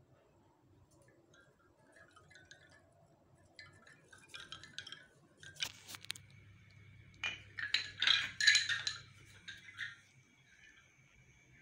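Bamboo wind chime, its tubes knocking against each other in irregular clusters of light wooden clacks, building to the loudest flurry about eight seconds in and dying away near the end.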